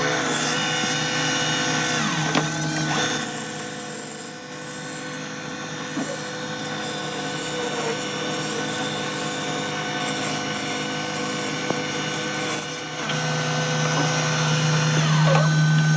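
Woodworking power tools running with a steady machine hum, the sound changing abruptly a few times.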